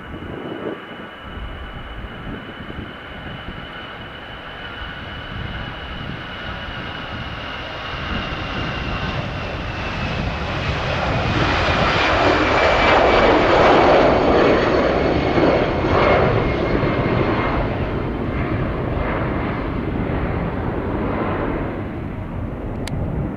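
Airbus A320's jet engines at takeoff thrust: a high whine that slowly drops in pitch over a low rumble, building to a loud, crackling roar about halfway through as the airliner accelerates and climbs out, then easing slightly.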